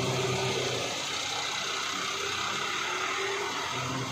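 Diesel engine running steadily: a low hum that drops a little in level about a second in, over a constant noisy hiss.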